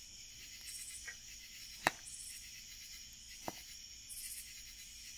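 Wood fire in a metal fire pit crackling, with one sharp pop about two seconds in and a softer one about a second and a half later. Behind it, insects chirp in short high bursts about once a second over a steady high insect drone.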